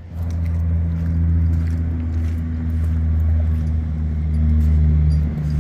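A steady low machine hum that starts abruptly, with faint footsteps.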